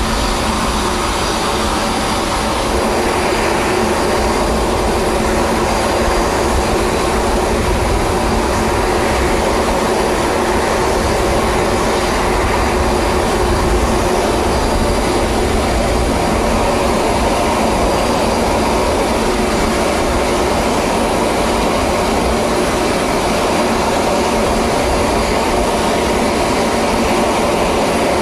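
Aircraft turbine engines running steadily: a loud, even noise with several steady whining tones and no change in pitch.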